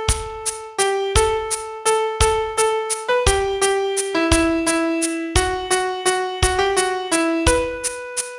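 Piano sound playing a slow melody one note at a time, over an even clicking beat of about three clicks a second with a heavier low accent on every third click, marking 3/8 time.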